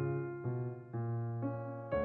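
Background piano music: a slow melody with a new note struck about every half second over held lower notes.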